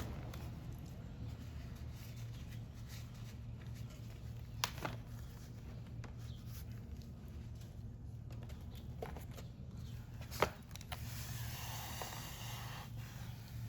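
Workshop handling noises over a steady low hum: a few sharp clicks or taps, then a brief rustling hiss near the end.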